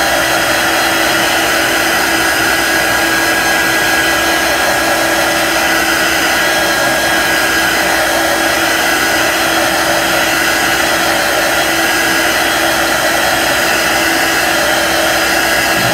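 Handheld craft heat tool blowing steadily with a constant motor hum, drying freshly applied chalk paste.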